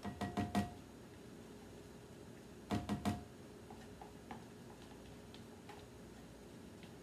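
Spatula knocking against the containers to shake off partly frozen whipped topping: a quick run of about four taps at the start and another about three seconds in, each with a brief ring.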